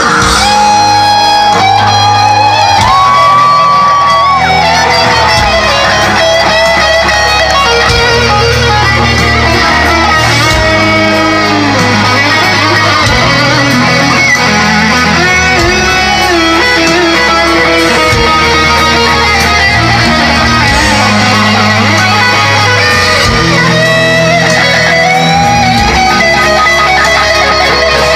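Live rock band playing loud: an electric guitar plays a lead line with sliding, bent notes over a steady bass.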